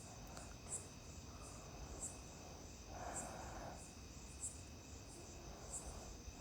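Faint, regular high-pitched cricket chirps, a little more than one a second, with a soft brief rustle about three seconds in.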